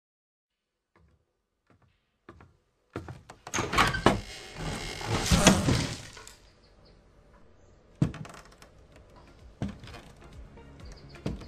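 Sound effects from a music video's intro: a few faint knocks, then a loud rush of noise that lasts about three seconds. Quieter music with sharp hits starts about two-thirds of the way in.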